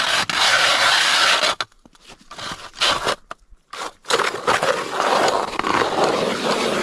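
A manual hand-crank ice auger cutting into lake ice, its blades making a gritty scraping crunch. It comes in two spells with a pause between them, a short burst in the pause, and the second spell starts about four seconds in.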